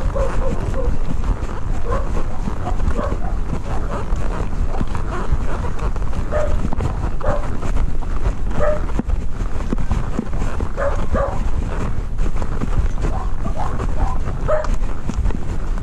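An animal's short, high calls, repeated many times at uneven intervals, over a heavy low rumble.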